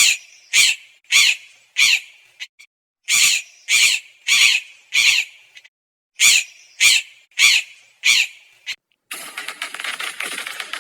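A crow cawing: twelve harsh caws in three runs of four, with pauses between the runs. About nine seconds in, a dense, rattling clatter takes over.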